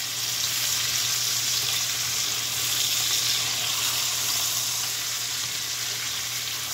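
Lamb shoulder chops sizzling in butter with onions and garlic in a cast-iron skillet: a steady frying hiss, with the butter being pushed around the pan with tongs.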